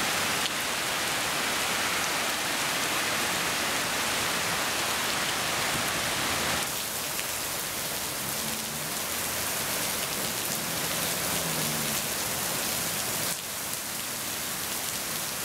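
Heavy rain pouring down onto a paved street, a steady dense hiss of downpour that drops a little in level about seven seconds in.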